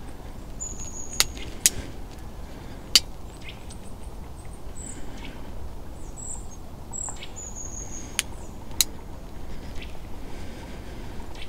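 Outdoor ambience with high, thin bird calls: short chirps and two longer flat whistles. Several sharp clicks or snaps, about five, are the loudest sounds, over a steady low background rumble.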